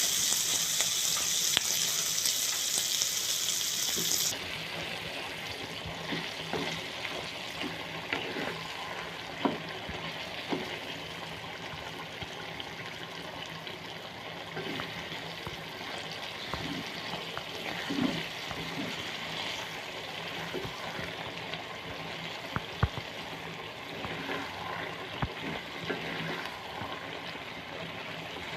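A water tap runs for about the first four seconds and cuts off sharply. Then cabbage and egg fry sizzle steadily in a pan, with scattered clicks and scrapes of a spatula stirring.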